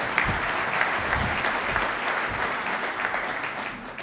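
A large audience applauding, a dense steady patter of many hands clapping that begins to die away near the end.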